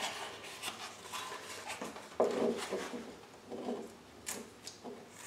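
Light, irregular knocks and rustles of a small painted wooden model boat hull being handled and set on the pages of a book, with the crinkle of blue painter's tape being worked off it; the loudest knock comes about two seconds in.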